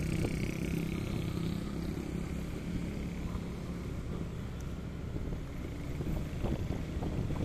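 Street traffic: engines of cars and motorcycles creeping along in heavy traffic, a steady low engine hum over road noise.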